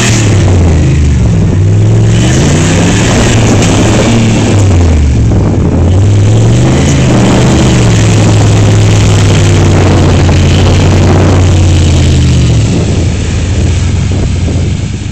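GMC Yukon's engine revving hard under load as the SUV pushes through deep mud. The pitch rises and falls several times, holds high for several seconds in the middle, then eases off near the end.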